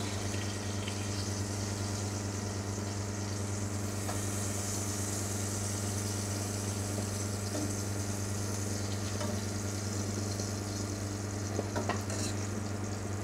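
Hot oil sizzling steadily in a steel frying pan as fried green chillies are lifted out, over a constant low hum, with a faint click or two near the end.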